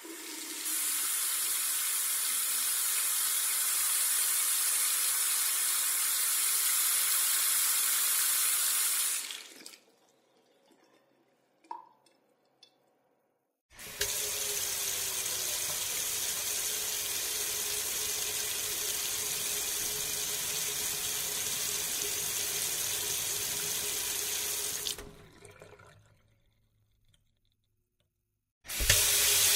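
Water running from a tap in two separate takes, each a steady rush of about ten seconds that stops and trickles away, with a single drip in the quiet gap between them. A third water sound starts abruptly near the end.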